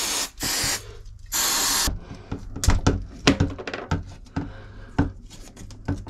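Aerosol can of electrical contact cleaner hissing in three short sprays onto power-point wiring. Then a run of irregular small clicks and knocks as the wires and the plastic power point are handled.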